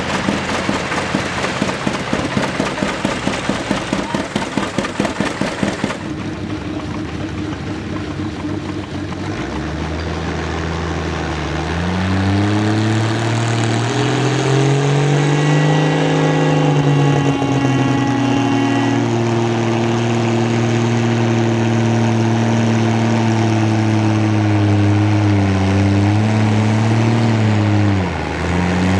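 A John Deere G's two-cylinder engine popping with a rapid, even beat for the first few seconds. Then an Oliver tractor's engine takes over, pulling a weight-transfer sled under load: it revs up over several seconds and holds a steady, loud note, with a brief dip near the end.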